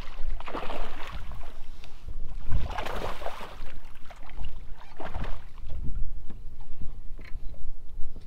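Water splashing beside a fishing boat as a hooked largemouth bass is fought to the side and lifted out by hand, in a few irregular surges, over a steady low rumble of wind on the microphone.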